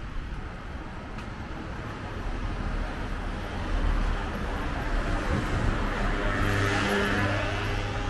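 Street traffic: a steady low rumble, then a car engine and tyres coming past close by, loudest about seven seconds in.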